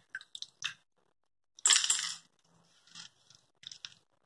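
Soaked tamarind pulp squelching as it is squeezed and mashed by hand in a steel mesh strainer, pressing the juice through into the bowl below. Short wet squishes, the loudest a little under two seconds in.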